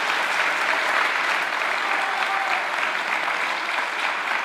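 Members of parliament applauding in the assembly chamber: a dense, steady round of clapping from many people.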